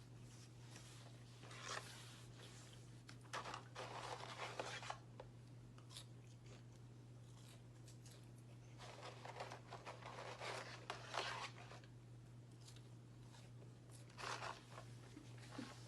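A person eating a cheeseburger and fries: faint rustling and crunching handling and chewing sounds in several short bursts.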